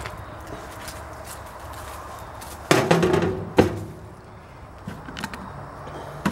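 Pneumatic air ratchet with a 17 mm deep-well socket running in one burst of about a second, tightening a lock nut on a carriage bolt, with a sharp knock as it stops.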